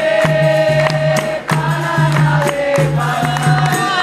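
Capoeira roda music: berimbaus and pandeiros playing a steady rhythm under group singing with long held notes.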